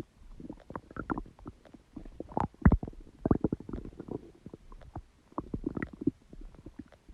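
Human stomach gurgling and rumbling: an irregular run of short pops, clicks and bubbly gurgles, with the loudest pop about two and a half seconds in.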